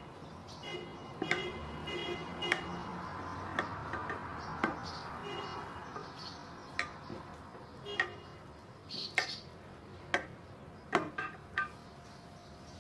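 A knife blade clicking against the bottom of a glass baking dish as it is pressed down through a soft cake, a series of short sharp taps about once a second.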